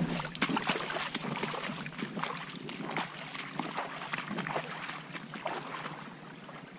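River water trickling and sloshing, with many small ticks and splashes; it grows fainter toward the end.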